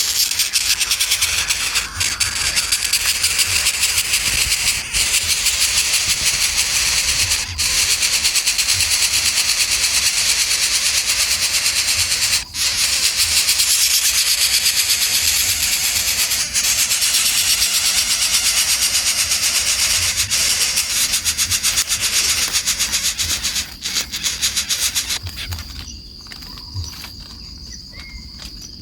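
Loud, dense insect chorus buzzing with a rapid pulsing, which stops about 25 seconds in and leaves a single steady, high-pitched insect trill.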